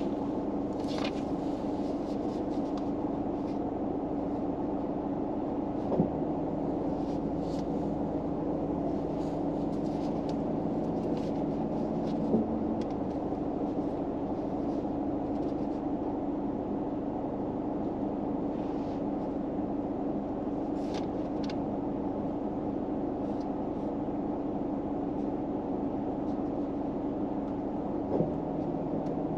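Steady hum inside a car, with a constant low drone. Three short clicks break through about 6, 12 and 28 seconds in.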